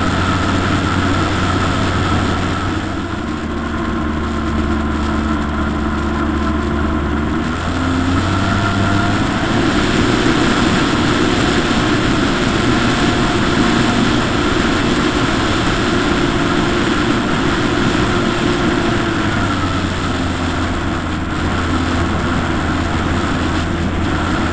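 Model aircraft's motor heard through its onboard camera, running steadily over a haze of wind and vibration noise, its pitch shifting in steps a few times as the throttle changes.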